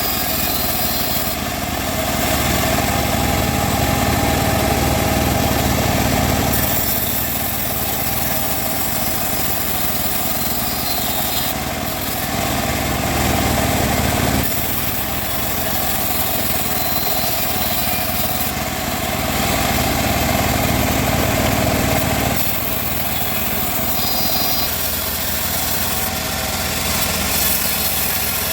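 Bandsaw running steadily, growing louder for a few seconds at a time, three times, as the blade cuts through wood.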